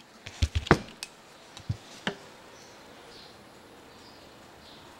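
Light hammer taps on a screwdriver, driving a small pin into the aluminium housing of a Zenith Stromberg carburettor water choke: a quick cluster of small metallic knocks about half a second in, then two single knocks around two seconds in.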